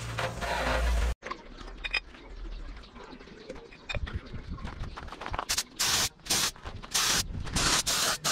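A garden hose sprays water for about the first second, then stops abruptly. After some faint handling clicks, a gravity-feed paint spray gun hisses in about six short bursts from about halfway through.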